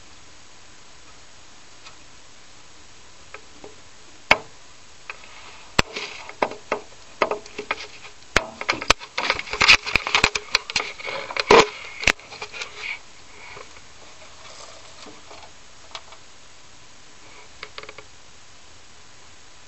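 Handling noise: a run of irregular clicks, knocks and rustling, densest and loudest in the middle, thinning to a few faint ticks near the end.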